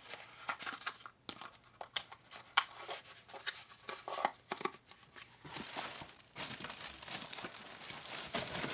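Packaging being handled: a small cardboard box and plastic parts bags rustling and crinkling, with light taps and clicks. The crinkling becomes steadier about halfway through.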